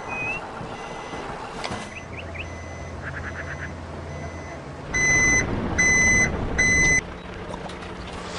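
Truck reversing beeper: three loud, high beeps, the last one shorter, starting about five seconds in. Before them there is a low steady hum and a few short chirps.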